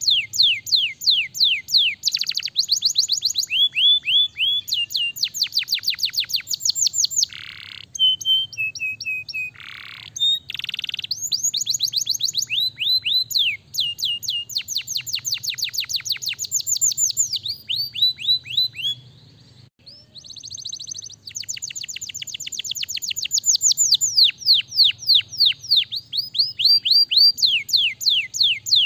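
Domestic canary singing: fast rolls of high, rapidly repeated falling notes, switching between phrases and briefly breaking off about two-thirds of the way through.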